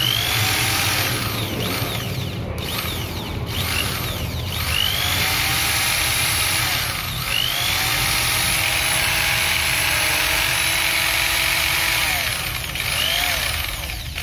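Zhipuzi corded electric drill spinning with no load. Its motor whine speeds up and slows down several times as the trigger is worked, holds steady at full speed for a few seconds, then winds down near the end.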